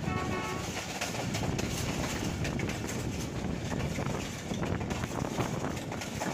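Passenger train running along the track, heard from an open coach window: a steady rumble of wheels on rail with wind noise and quick clattering ticks. A brief pitched tone sounds just after the start.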